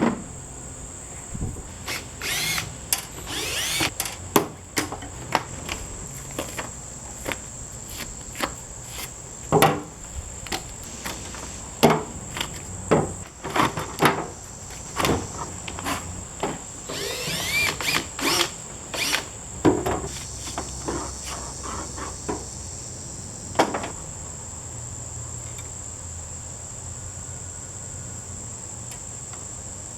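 Power drill whirring in short runs amid clanks and clicks of metal parts, as an air conditioner is taken apart for scrap. A steady high cricket trill runs underneath, and the tool work stops about three-quarters of the way through.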